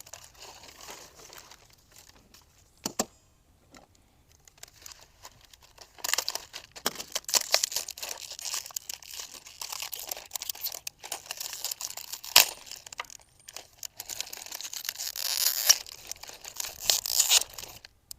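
Packaging being crinkled and torn open while cart parts are unwrapped: a long stretch of rustling and tearing from about six seconds in until near the end, with a sharp knock about three seconds in and another partway through the rustling.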